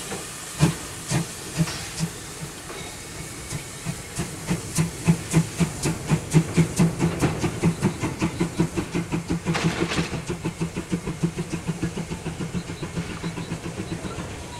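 Saxon VII K narrow-gauge steam tank locomotive (class 99.73–76) starting away, its exhaust beats quickening from about two a second to three or four a second. The beats grow loud and then ease off towards the end, over a steady hiss of steam from the open cylinder drain cocks.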